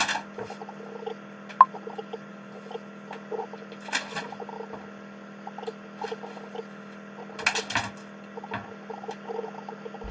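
Steady low hum with scattered small scratches, clicks and rustles, in a few short clusters, and one brief sharp squeak about one and a half seconds in.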